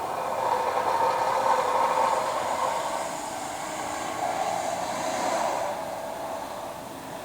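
Construction machinery making a loud, continuous drone that fades away at the very end.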